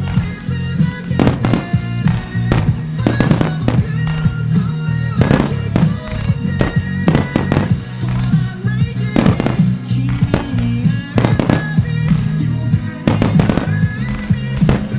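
Fireworks shells bursting in quick succession, about one or two sharp bangs a second, over a pop song playing loudly as a music starmine display.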